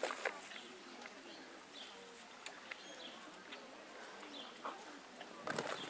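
Faint outdoor ambience with scattered short bird chirps and a few light ticks.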